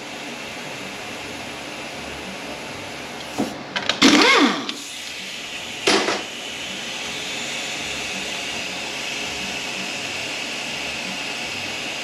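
Small power-tool motor whirring up and back down briefly about four seconds in, followed by a sharp click near six seconds, over a steady shop hiss, while valve body bolts are taken out.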